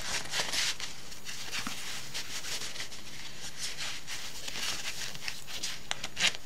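Fabric rustling as a waterproof touchscreen glove is pulled onto a hand: a run of short scratchy rustles, with a sharper one near the end.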